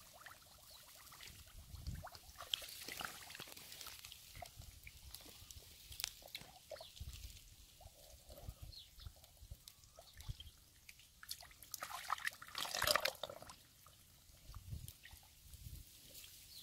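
Hands digging and scooping in wet mud and shallow water, squelching, sloshing and dripping in irregular bursts, with a louder stretch of splashing about three quarters of the way through.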